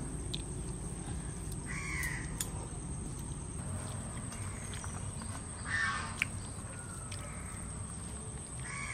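A crow cawing three times, single short harsh caws about two seconds in, near six seconds and at the end, over a steady low background hum, with a few sharp clicks in between.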